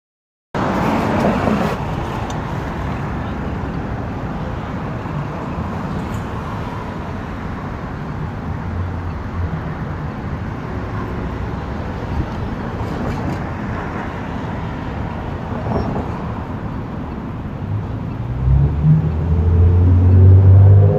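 City street traffic noise: a steady wash of passing cars on the road. Near the end a low steady hum swells louder.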